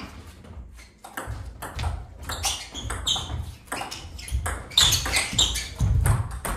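Table tennis rally: the ball clicks in quick succession off the bats and the table. Low thuds run underneath as the players move about.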